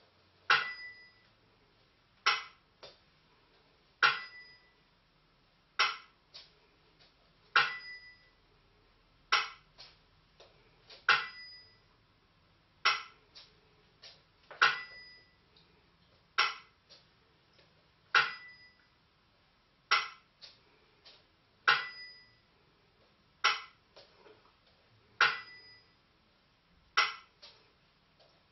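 Burmese si and wa keeping a steady slow beat: a small bell-cymbal (si) ting that rings briefly, alternating with a dry bamboo clapper (wa) clack, one stroke about every 1.75 seconds. Each clapper stroke is followed by a lighter tap.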